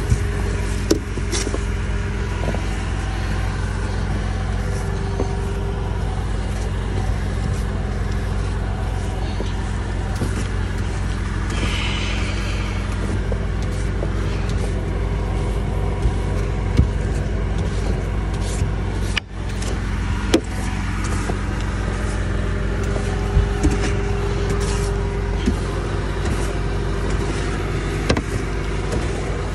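A car engine idling steadily, with occasional soft knocks and scrapes from a snow brush sweeping snow off the car's glass and body.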